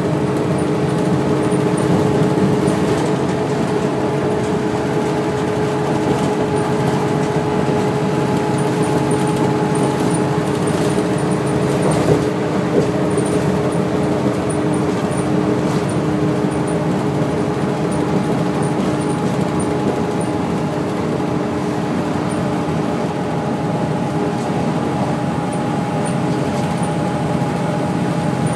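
Cabin sound of a NABI 40-LFW bus under way: its Cummins ISL-G natural-gas inline-six and Allison B400R automatic transmission running at a steady pace, a steady whine over road noise. A brief knock about twelve seconds in.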